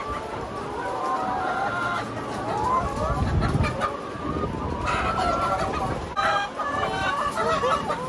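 A house full of chickens clucking, many overlapping calls at once: the flock is stirred up by a person moving close among them.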